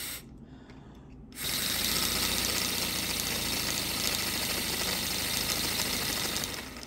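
Paper boxer twin air engine running on compressed air: a fast, even hissing chuff of air puffs through its valves. It cuts out just after the start and picks up again about a second and a half in, running steadily until just before the end.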